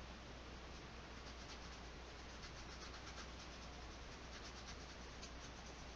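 Paintbrush bristles scrubbing oil paint onto canvas: a run of faint, quick scratchy strokes over a steady hiss and low hum.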